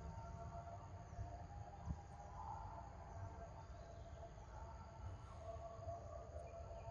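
Forest ambience: a faint, steady drone of insects over a low rumble, with one short knock about two seconds in.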